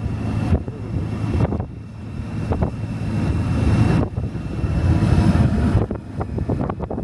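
Touring motorcycle riding along, its engine under a heavy rush of wind buffeting the microphone. The wind rush grows louder about four seconds in and eases near the end.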